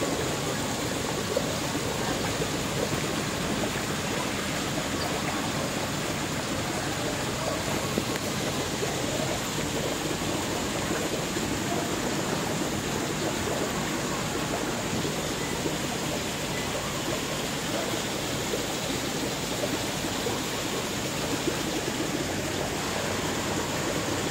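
Steady rush and splashing of water in a koi pond, with a crowd of koi churning the surface.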